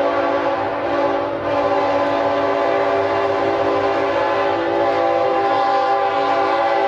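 Canadian National freight locomotive's air horn sounding a long, held chord as the train approaches, with the diesel locomotives' rumble underneath.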